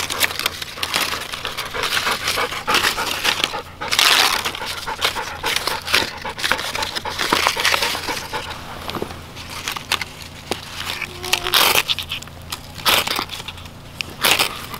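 Dry birch bark being torn and crinkled by hand and tucked into a pile of twigs, with several sharper crackles in the last few seconds. A golden retriever pants close by.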